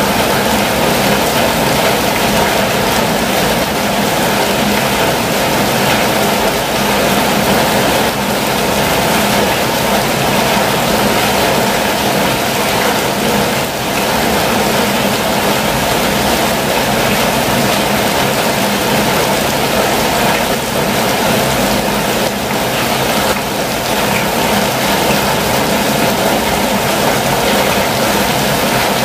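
Heavy rain falling on a campervan's roof and windows, heard from inside: a dense, steady rush with no breaks.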